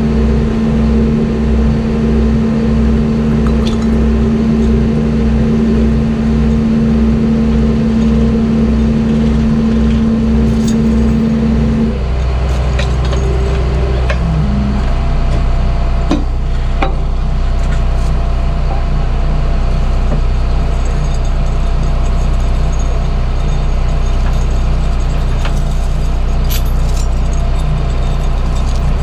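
Heavy wrecker's diesel engine running steadily. About twelve seconds in, a steady hum drops out and the engine note changes, with a few light metal clinks from the rigging later on.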